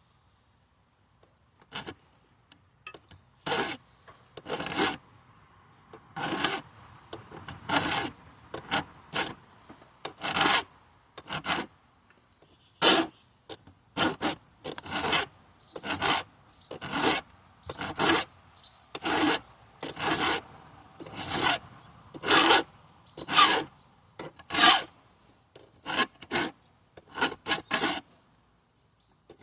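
Hand file rasping on a chainsaw chain being sharpened: repeated short filing strokes, roughly one a second, each a brief gritty scrape of steel on steel.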